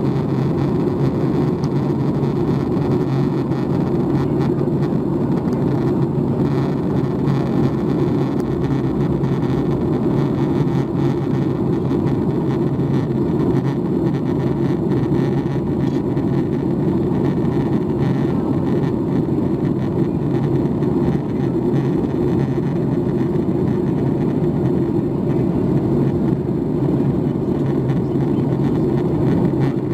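Steady cabin noise inside a Boeing 737 MAX 8 in flight: its CFM LEAP-1B turbofan engines and the rush of air along the fuselage, heard as an even low hum that does not change.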